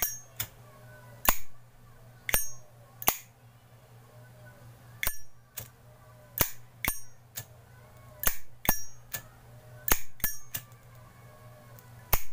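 Zippo lighter's hinged lid flicked open and snapped shut again and again: about fifteen sharp metallic clicks, several with a bright ringing 'cling', often in quick pairs.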